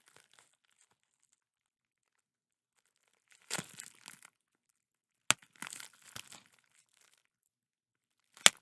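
Plastic bubble wrap crinkling as it is handled, with two sharp pops of bubbles bursting, one about five seconds in and a louder one near the end.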